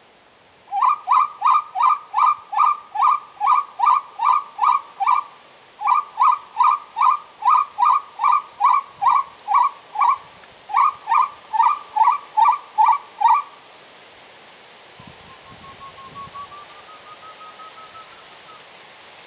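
A pio cruzeta wood-quail call blown in the uru's rhythmic song: loud, short, quickly rising whistled notes, about two to three a second, in three runs with brief breaks. Near the end a faint, slowly rising whistle follows.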